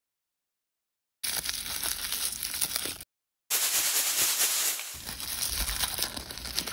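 Crinkling and rustling of L.O.L. Surprise blind-bag wrappers being unwrapped by hand, in two stretches: one starting about a second in and a longer one after a short break near the middle.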